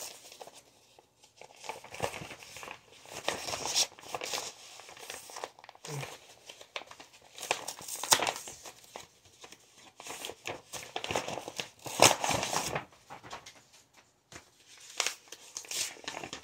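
Paper mailer envelope being torn open and handled: irregular bursts of tearing and crinkling paper.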